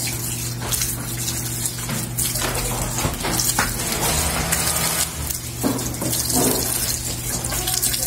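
Water running from a tap into a laundry sink, splashing over hair being rinsed under it, with a steady low hum beneath the running water.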